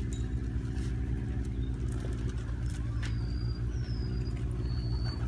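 Motor vehicle engine idling steadily, with an even low hum that does not change.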